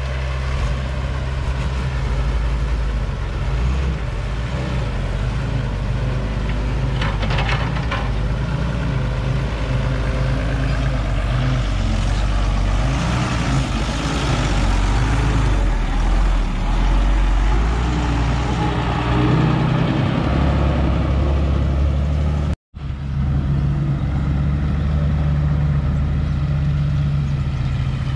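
Heavy diesel engines of an old Caterpillar excavator and a six-wheel dump truck running steadily while soil is dug and loaded, with a brief clatter about seven seconds in. The sound drops out for an instant about three-quarters of the way through.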